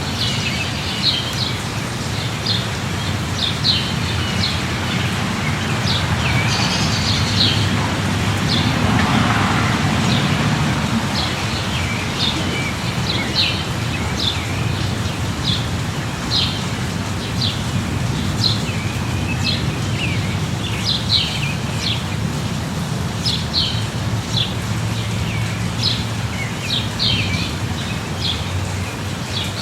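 Steady light rain over a low rumble, with a small bird giving short high chirps about once a second throughout. A broader swell of noise rises and fades about seven to eleven seconds in.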